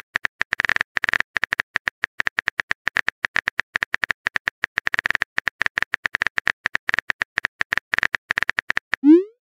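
Typing sound effect: rapid, irregular keyboard clicks. About nine seconds in it ends with a short rising swoop, a message-sent sound.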